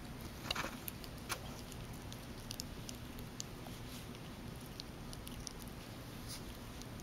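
Yorkshire terrier puppy chewing and gnawing a fabric chew toy: faint, scattered soft clicks and rustles, with a slightly louder cluster about half a second in.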